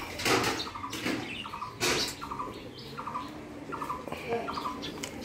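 Rose-ringed parakeets chattering in short, rapid chirps. One is bathing in a water bowl, and its splashing and wing-flapping makes two loud bursts, about a third of a second in and again about two seconds in.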